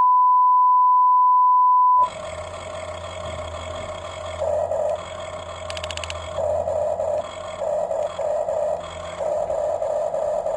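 A steady electronic beep tone for about two seconds, then the whine of the small electric motors and gears of a remote-control Huina construction toy, growing louder and quieter as the motors start and stop several times.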